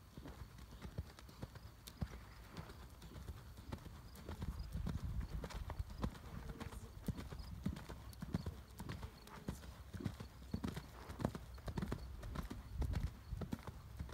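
Hoofbeats of a ridden horse moving at pace over soft dirt arena footing: a running series of dull thuds, growing louder after about four seconds.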